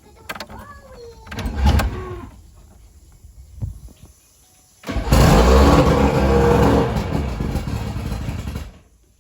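A short loud burst about a second and a half in; then, about five seconds in, a Mercury Force 120 two-stroke outboard motor starts suddenly and runs steadily for about four seconds before cutting off.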